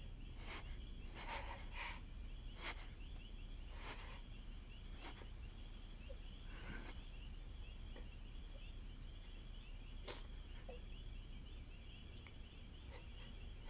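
Faint night ambience of insects chirring steadily, with short high chirps now and then and a few soft clicks.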